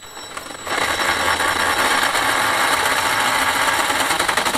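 Hammer drill with a large masonry bit boring into a stone wall to enlarge a hole. It starts up under a second in and then runs steadily with a fast hammering rattle.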